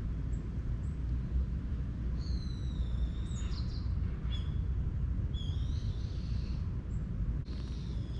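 Two longer, high, slightly falling bird calls about two and five seconds in, with a few faint short chirps, over a steady low outdoor rumble.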